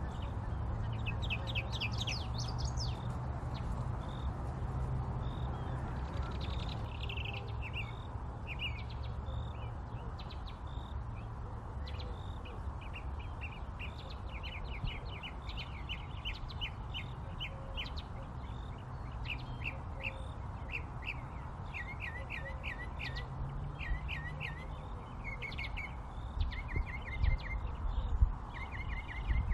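Birds chirping and trilling in quick runs of short high notes, over a steady low rumble, with a few louder low bumps near the end.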